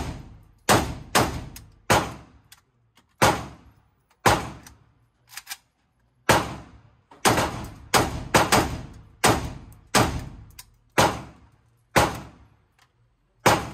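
AK74 rifle firing 5.45×39 mm rounds in a string of about fifteen single shots at an uneven pace, some in quick pairs and triplets, each shot ringing out in the range's echo.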